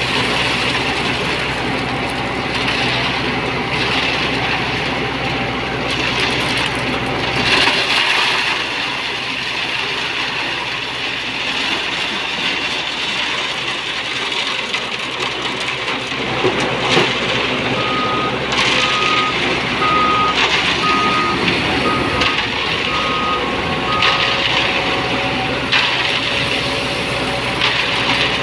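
Diesel engine of an Ajax Fiori self-loading concrete mixer running steadily, with a reversing alarm beeping about once a second for some six seconds in the second half.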